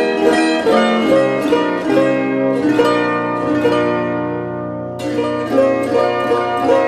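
Gusli (Russian plucked psaltery) music: a quick plucked melody, then a chord left ringing and dying away until fresh plucking starts about five seconds in.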